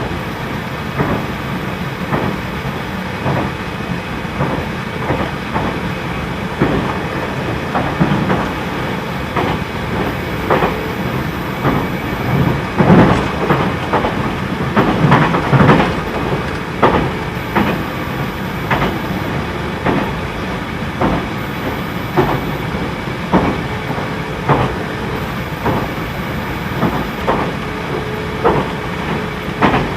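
Interior running sound of a JR Central 313-series electric train: the wheels click over rail joints and pointwork in an uneven rhythm, over a steady bed of running and air-conditioning noise. The clicks come thickest and loudest about halfway through.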